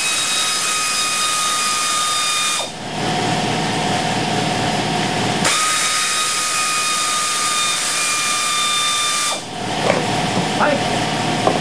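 Compressed air rushing out in a loud, whistling hiss, twice for about four seconds each. Between the blasts the compressor keeps running with a steady hum.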